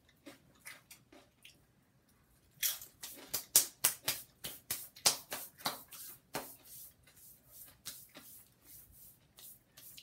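A tortilla chip crunched between the teeth close to the microphone: a quick run of crisp crunches starting about two and a half seconds in, then softer crunches near the end as it is chewed down.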